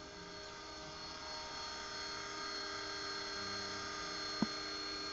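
Mini Titan radio-controlled helicopter in an Agusta 109 scale body, flying. Its motor and rotor give a steady, many-toned whine that grows a little louder over the first two seconds. One sharp click comes near the end.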